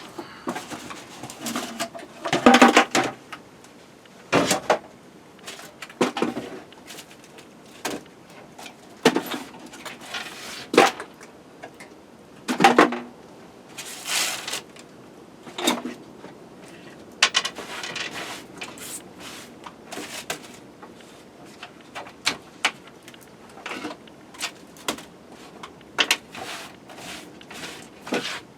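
Irregular handling noises: scattered knocks, clicks and rustles of objects being moved and set down, with a few louder clatters.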